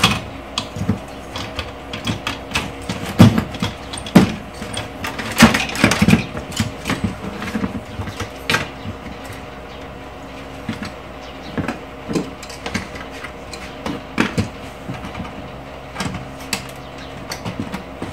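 Irregular clicks, knocks and clatter of a set-top box's metal chassis and plastic parts being handled and pulled apart by hand, busiest about three to six seconds in. A steady electric-fan hum runs underneath.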